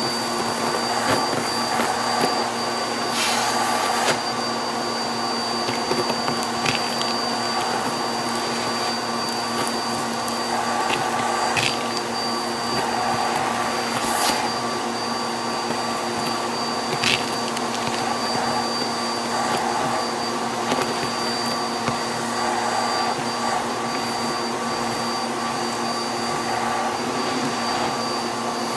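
Vacuum cleaner running steadily with a high whine, its crevice tool on the hose sucking confetti off a shag carpet. Now and then a sharp click as a piece is pulled into the nozzle.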